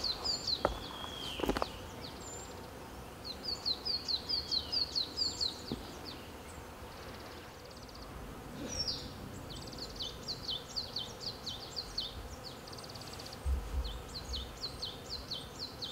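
A small bird singing in bouts of quick, high, falling chirps, several notes a second, repeated three times over a faint outdoor hiss. A couple of soft knocks come in the first two seconds.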